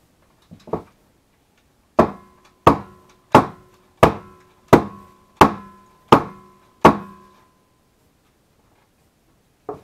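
A wooden soap loaf mold filled with freshly poured soap batter being banged down on a hard surface: eight sharp knocks about 0.7 s apart, each with a brief ringing tone, after two lighter knocks, to settle the batter and knock out air bubbles. One more knock at the very end.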